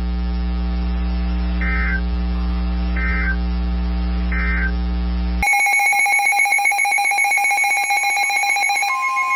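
Weather radio alert audio. A steady electrical hum with three short faint beeps cuts off suddenly about five and a half seconds in, and a loud electronic alert with a rapid pulsing multi-tone sound takes over. A steady single tone joins near the end.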